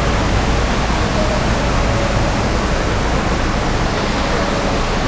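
Concord Waterfall's falling water: a loud, steady rush of noise with a low rumble underneath.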